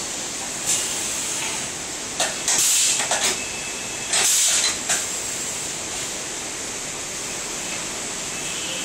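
Starway VCM-1060 CNC vertical machining center giving several short bursts of air hiss in the first five seconds, over a steady high hiss.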